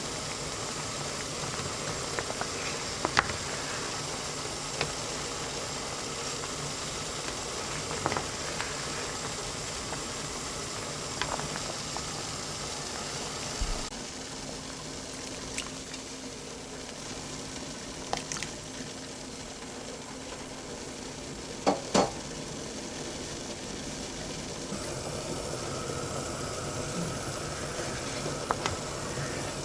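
A large pot of broth at a steady boil, bubbling with an even hiss, and a few scattered clicks of a utensil against the pot. A louder double knock comes about 22 seconds in.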